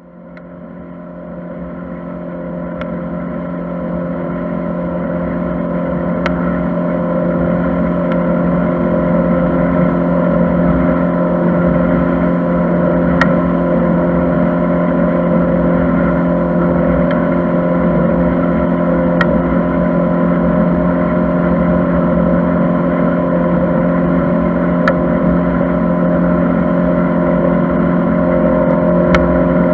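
Motor cruiser's engine running at a steady cruising speed, a constant drone that fades in over the first few seconds, with a few faint ticks scattered through it.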